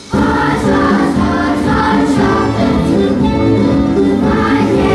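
Children's choir singing together, the voices coming back in abruptly at the start after a brief drop.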